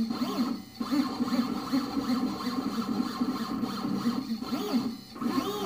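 Shapeoko 3 CNC mill's stepper motors whining as the gantry drives a marker through short back-and-forth drawing moves, the pitch rising and falling with each move, with a couple of brief pauses.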